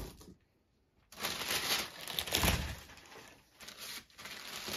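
Packing material rustling and crinkling as items are dug out of a cardboard box, starting about a second in, with a dull knock about two and a half seconds in.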